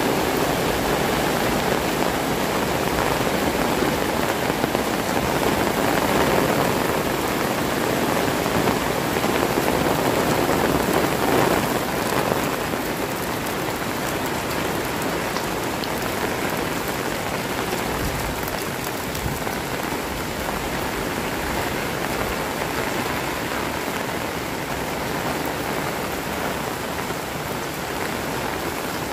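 Heavy rain falling steadily, a dense, even hiss that eases a little about twelve seconds in.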